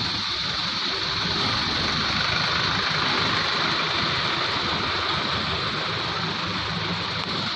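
Steady roadside traffic noise, with vehicle engines running and idling.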